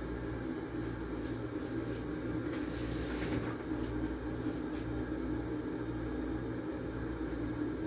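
Window air conditioner running with a steady hum. A few faint clicks and a brief rustle about three seconds in.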